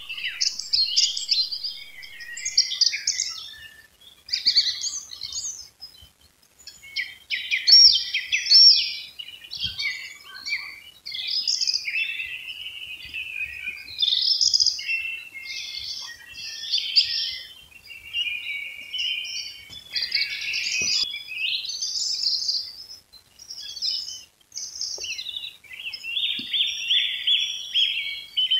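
Dawn chorus of songbirds: several birds sing overlapping, quickly changing phrases of chirps and warbles. Near the end one long, fast trill, falling slightly in pitch, stands out.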